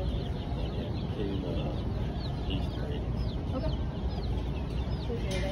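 A brooder full of baby chicks peeping: many short, high, falling peeps overlapping continuously, over a steady low background hum.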